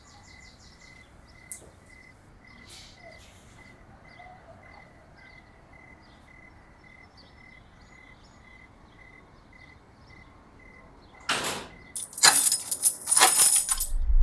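Quiet room tone with a faint high chirp repeating about three times a second, then, from about eleven seconds in, a loud rushing noise and a crackly clatter.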